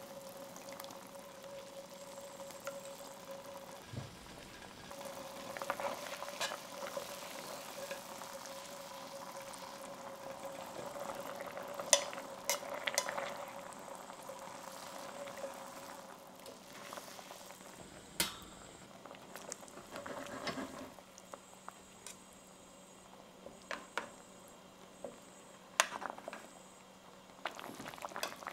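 Soy and red wine braising sauce bubbling at a simmer in a stainless steel pan around pork ribs, with a metal spoon stirring and several sharp clinks of the utensil against the pan.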